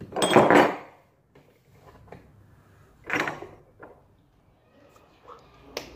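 Chrome washbasin tap parts handled and knocked on a table: a clattering burst at the start and a shorter one about three seconds in, then a few light clicks.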